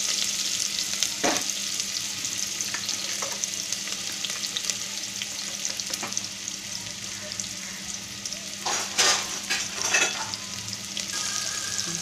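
Chopped onion sizzling in hot oil in a pressure cooker, a steady hiss that eases off a little as the onion starts to fry. There are a few light clicks, and about nine seconds in a metal spatula stirring, knocking and scraping against the cooker.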